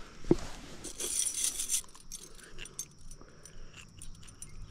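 Metal chain fish stringer being handled as a channel catfish is clipped onto it: small metal clinks and clicks, with a sharp knock just after the start and a brief scraping rustle about a second in.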